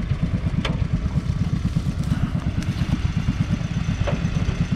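1944 John Deere Model L's 1.1-litre two-cylinder petrol engine idling steadily with a rapid low putter, plus a few light clicks.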